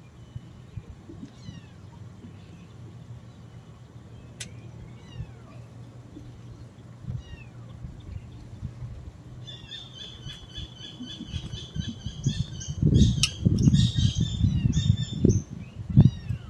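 Birds calling: thin descending whistles every second or so, then about halfway through a louder burst of rapid, repeated high calls. A loud low rumble joins in over the last few seconds.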